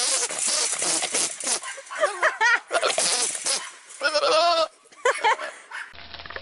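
Goat bleating: a run of loud, raspy calls with a wavering, quavering pitch. Near the end it gives way to a quieter steady low hum.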